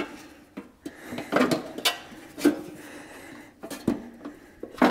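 Sheet-metal heater box housing of a 1968 Ford F100 being handled and fitted together, giving a string of light metal clanks and scrapes.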